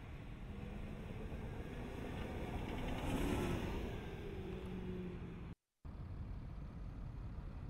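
2013 Range Rover driving over sand dunes, its engine running under load over a low rushing noise. The engine grows louder about three seconds in, and the sound cuts out for a split second near the end.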